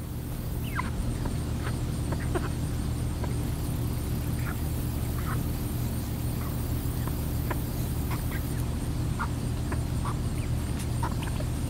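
Domestic hens clucking in short, scattered calls over a steady low hum.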